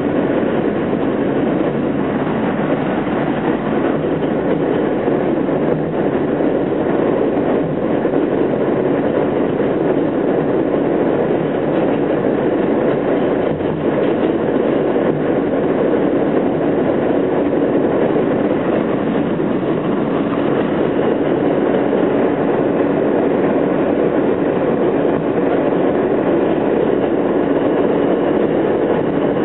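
Inside an R160A-2 subway car running at slow speed over elevated track: a steady rumble of wheels on rail and the car's running gear.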